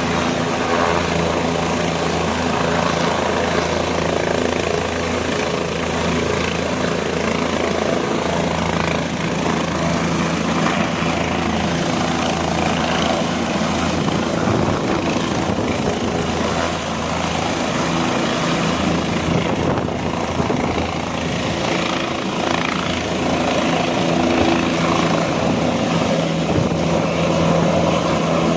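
Helicopter in flight, its rotor and turbine engine running steadily with a low, even hum under a noisy wash.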